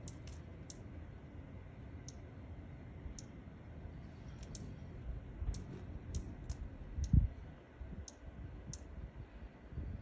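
Short, sharp, high chip notes from a female hummingbird, more than a dozen at irregular intervals, over a low steady rumble. A dull low thump sounds about seven seconds in.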